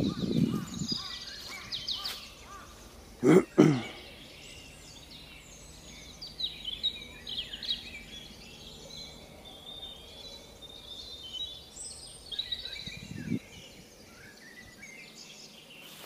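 Small birds calling and chirping in forest, short high calls repeated through the whole time. Two loud dull thumps come close together about three seconds in.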